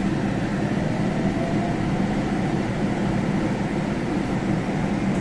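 Steady low rumble of a railway station platform, from trains and station machinery, with a faint rising tone a couple of seconds in.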